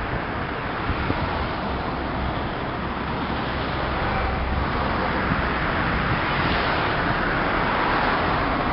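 Road traffic: a car driving past on the road below, a steady tyre and engine noise that slowly grows louder toward the end.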